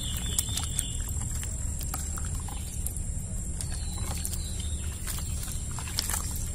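Cut snake gourd and potato pieces being washed by hand in a steel bowl of water, with water sloshing and scattered clicks of pieces knocking together and against the bowl.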